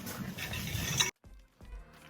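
Noisy outdoor activity with a few sharp clicks that cuts off abruptly about a second in, followed by soft background music starting up.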